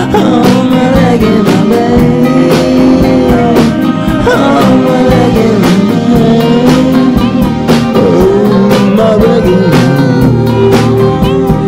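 A man singing a rock song over guitar, with a steady beat of about two hits a second.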